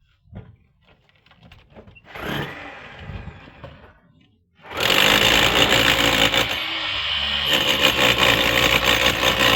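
A few light taps and knocks, then about halfway in a power tool starts up and runs loudly and steadily, with a fast, rattling texture.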